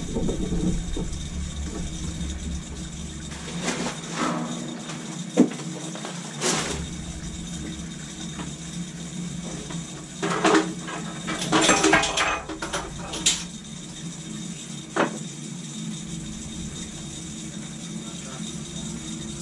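Air being purged from a hot-water (hydronic) heating zone: water and trapped air rushing through the copper piping and out the purge hose, with irregular crackles and pops from the air. The crackling is the sign of a lot of air still in the system.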